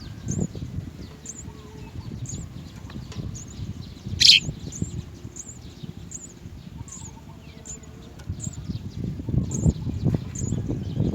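Small birds chirping: short high chirps repeating evenly about once or twice a second, over low rustling and thumps, with one brief sharp louder sound about four seconds in.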